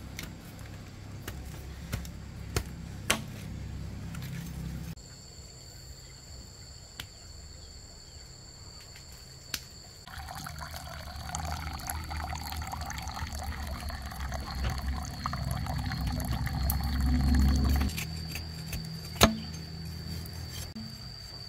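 Water pouring, growing louder over several seconds and then stopping abruptly.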